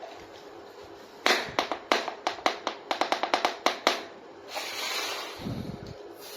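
A quick run of about a dozen sharp clicks and taps, like small plastic toy kitchen pieces being handled and knocked together, followed by a short rustle and a low thump near the end.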